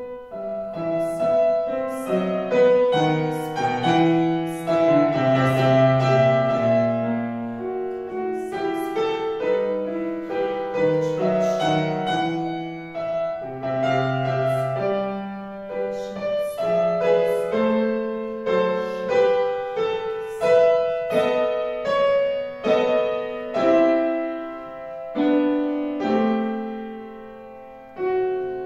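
Petrof grand piano playing a flowing piece in chords and moving lines. It comes in right after a silence and softens near the end.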